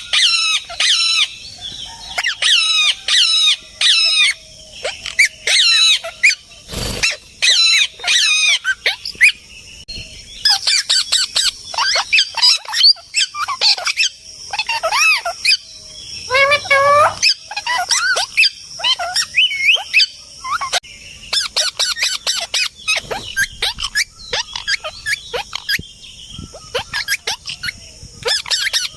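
Parrots calling: a rapid, continuous string of shrill squawks and chirps, with one sharp thump about seven seconds in.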